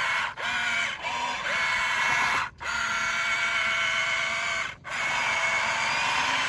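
Electric motors of radio-controlled construction models whining steadily, with the pitch picking up again after short gaps. The sound cuts out suddenly four times for a moment.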